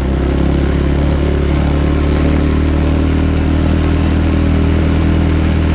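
Dirt bike engine running at a steady, moderate speed while riding along a trail, its pitch nearly constant, over a steady hiss of wind and ground noise.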